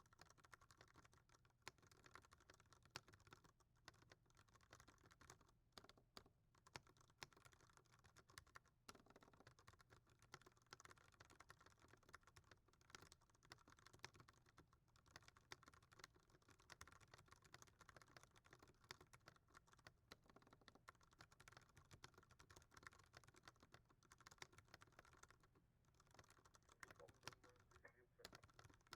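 Faint, fast, continuous typing on a Ducky One 2 Mini mechanical keyboard with Cherry MX Brown switches: a dense stream of keystroke clicks.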